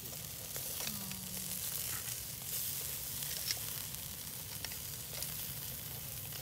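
Beef short ribs sizzling over charcoal on a small hibachi-style grill: a steady crackling hiss. A few faint clicks come through it as metal tongs turn the meat on the wire grate.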